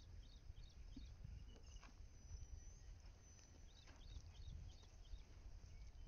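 Near-silent field ambience: a low wind rumble on the microphone, with small birds chirping in short quick runs, once at the start and again about four seconds in.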